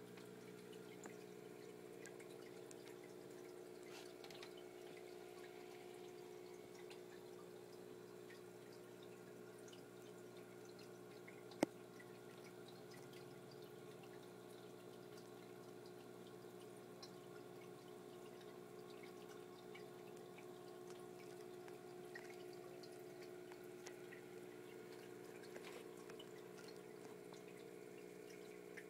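Faint trickling and dripping of water from a saltwater aquarium's hang-on-back filter and powerhead, over a steady low hum. There is one sharp click about twelve seconds in.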